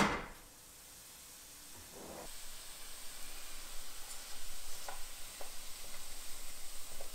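Lean ground chicken landing with a thump in a hot, oiled non-stick skillet. It then starts sizzling, a fine hiss that builds from about two seconds in, with a few light ticks as a silicone spatula breaks up the meat.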